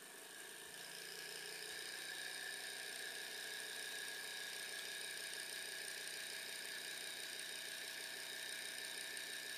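Small gamma-type Stirling engine running on its own after a hand spin of its flywheel, with a fast, even mechanical whirr and hum that grows louder over the first two seconds and then holds steady. Its builder says it now runs about as well as it ever will, with the dead space in its cold piston eliminated.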